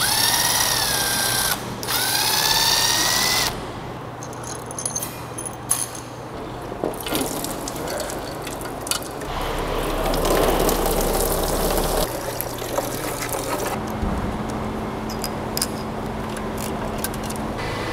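Cordless drill spinning bolts out twice in the first few seconds, its motor whine rising and falling in pitch. Then scattered metal clinks, rattles and scrapes as engine parts are handled.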